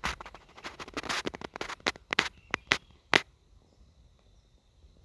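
Irregular sharp crackling and rustling, dense for about three seconds and then stopping, leaving a faint steady high tone.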